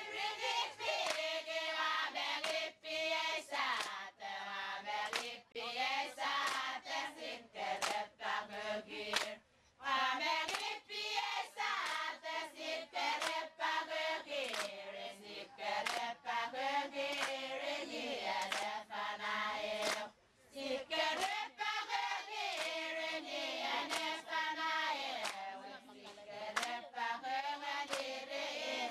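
A group of voices chanting together, with hand claps among the voices. The chant breaks off briefly twice, about nine and twenty seconds in.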